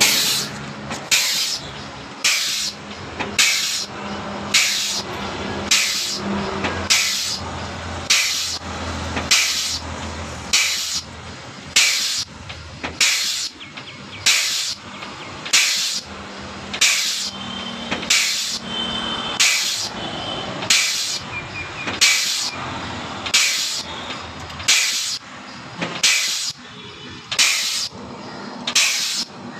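Air-over-hydraulic bottle jack's pneumatic pump cycling, letting out a sharp puff of exhaust air about once a second in a steady rhythm, with a faint low hum underneath.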